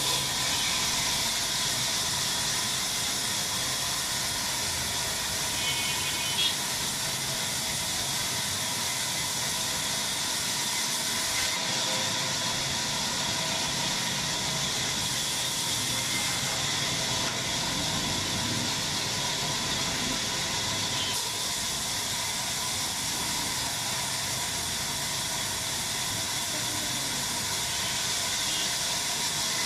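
Sawmill saw running steadily, an even hiss with a constant high whine.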